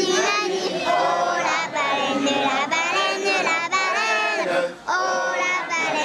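A group of children singing a song together, with a brief break between lines about three-quarters of the way through.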